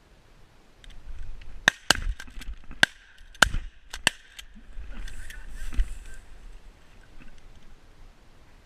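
A volley of about six shotgun shots, fired in quick succession by duck hunters at passing ducks, spread over roughly three seconds.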